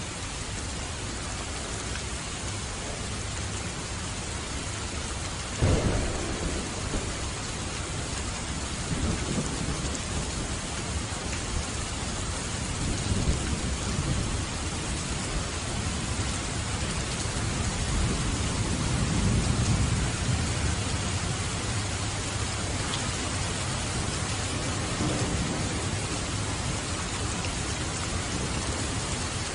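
Steady rain with a thunderstorm: a sudden sharp thunderclap about six seconds in, then low rolling rumbles of thunder that swell again several times.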